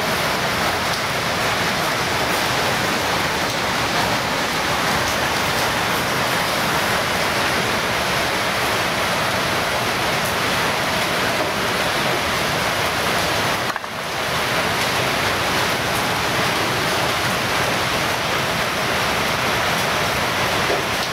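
Steady loud rushing noise, like heavy rain or hiss, with no distinct cutting strokes standing out; it drops away for a moment about two-thirds through.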